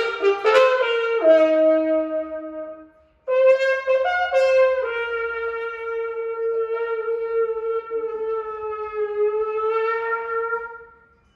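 Brass horn played with a rubber toilet-plunger cup as a mute: a few notes that step down in pitch, a short break about three seconds in, then one long held note with a couple of small pitch changes early on, fading out near the end.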